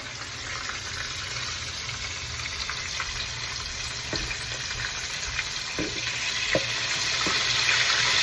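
Breaded chicken strips deep-frying in oil heated to 350°F: a steady sizzle with a few pops, growing louder near the end.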